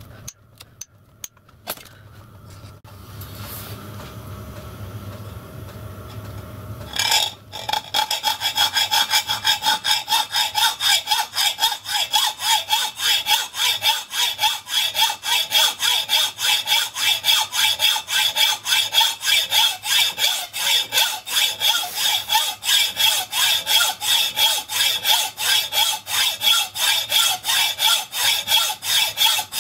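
Hand hacksaw cutting through a solid block of cast iron clamped in a bench vice, in steady, even back-and-forth strokes with a ringing edge to each stroke. A few handling clicks come first, and the sawing starts about seven seconds in.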